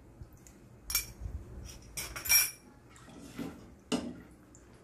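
A metal spoon clinking against a cooking pot as salt is added to the broth, then a ladle stirring the pot. Several sharp clinks, the loudest about two seconds in.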